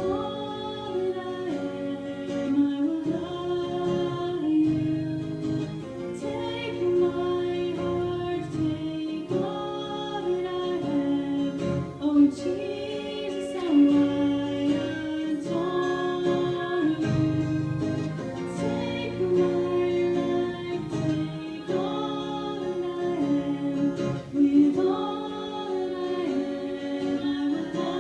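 Two women singing a worship song live, with instrumental accompaniment.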